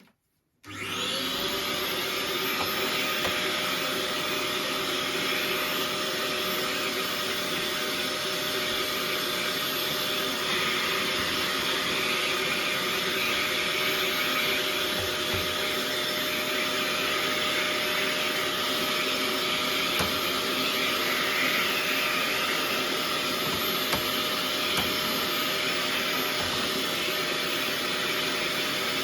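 Vacuum cleaner switched on about half a second in, its motor whining up to speed and then running steadily, with a few light knocks.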